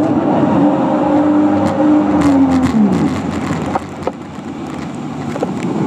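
Jet ski engine running at speed with a steady pitch over rushing water and wind. About three seconds in its pitch falls and the sound drops as the engine slows.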